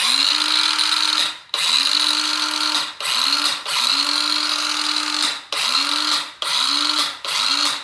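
National EZ3500 cordless circular saw run free in seven trigger pulls. Each time the motor spins up to a steady whine, then winds down in pitch when the trigger is let go. Some runs are long and some are short.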